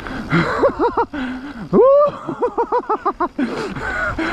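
A person laughing in quick pitched bursts, about six or seven a second, with one loud rising whoop about two seconds in, over rushing trail noise.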